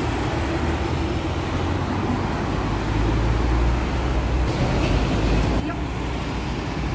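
Road traffic on a busy multi-lane road, a steady noise of cars and buses passing. A deep engine rumble swells in the middle, then the level drops suddenly near the end.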